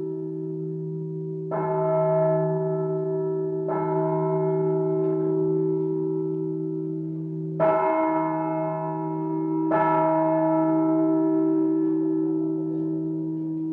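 A bell tolled four times, the strokes about two seconds apart with a longer pause in the middle. Each stroke rings on into the next, so the tone never dies away.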